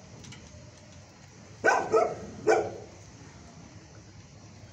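A dog barks three times in quick succession, starting about a second and a half in, over a low steady background hum.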